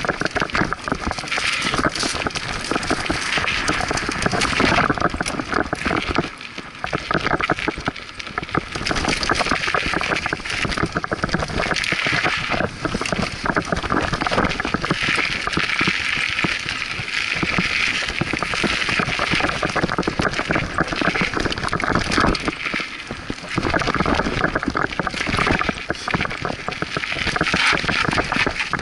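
Scott Aspect 35 hardtail mountain bike riding fast down a rough dirt and stone singletrack: steady tyre noise on the trail with constant rattling and knocks from the frame and components over bumps, mixed with wind noise on the action cam's microphone. The noise eases briefly twice, about six seconds in and again near twenty-three seconds.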